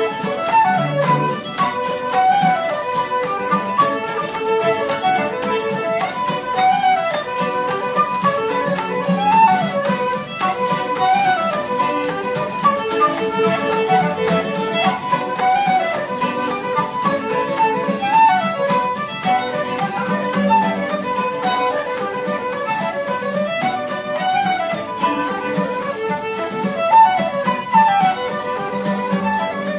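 Irish traditional session music: fiddles lead a fast dance tune in quick running notes, over steady strummed chords.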